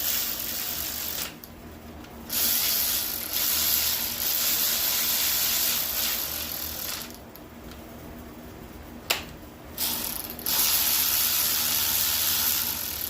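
Ratchet wrench clicking in quick, rapid runs with short pauses, running head studs down into an engine block by hand. There is a single sharp click about nine seconds in.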